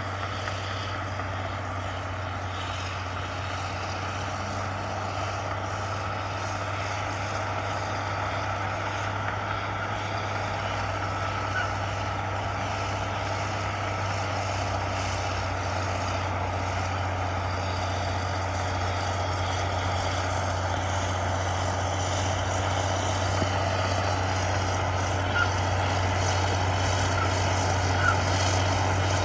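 Heavy diesel earthmoving machinery running steadily with a low hum, slowly growing louder, with a few faint clicks.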